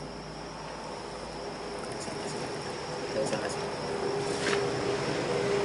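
Crickets chirping in a steady, high-pitched trill, with a couple of faint knocks in the second half.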